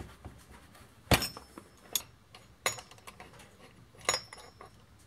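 Four sharp metallic clinks and knocks, the first about a second in the loudest, some with a brief ring, from tools and metal parts being handled on a partly dismantled STIHL MS211 chainsaw.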